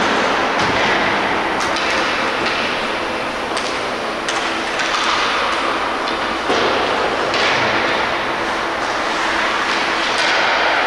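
Ice hockey play on a rink: a steady scraping of skate blades on the ice, broken by frequent sharp clacks of sticks and puck.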